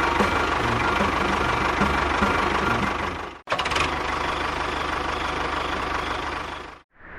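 A vehicle engine running steadily with a low rumble. It cuts out suddenly about three and a half seconds in, comes straight back, and cuts off again near the end.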